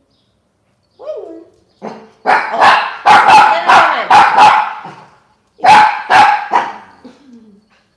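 Small dog barking: a quick run of sharp, loud barks, then a pause of about a second and three more barks.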